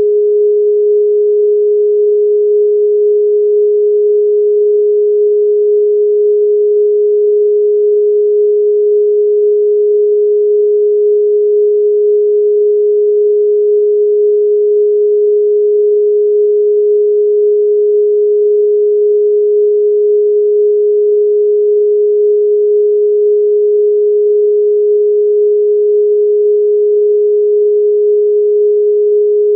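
A single steady, mid-pitched pure tone held without any change: an electronically generated sine-wave "protection frequency" tone for meditative listening.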